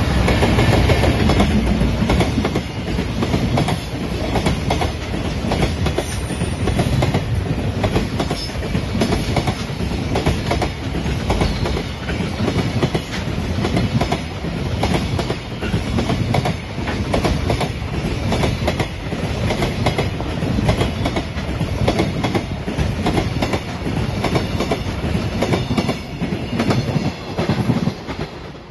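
JR Freight EF210 electric locomotive passing close, followed by a long train of container flatcars, the wheels clattering over the rail joints in a steady rhythm. It is loudest as the locomotive goes by at the start and thins as the last wagons pass near the end.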